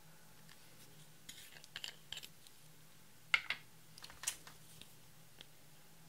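Small plastic clicks and crackles as a plastic squeeze tube of cosmetic liquid highlighter is handled and its cap is taken off, with the sharpest click about three and a half seconds in and another just after four seconds.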